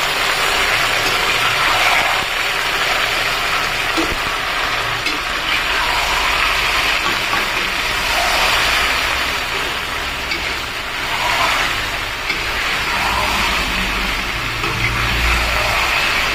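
Chicken pieces and onions sizzling in hot oil in an iron kadai, the sizzle swelling and easing as a metal spatula stirs and turns them against the pan. A low steady rumble runs underneath.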